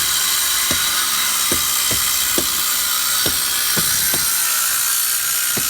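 Angle grinder running steadily on the roof's concrete, with irregular short knocks from the work.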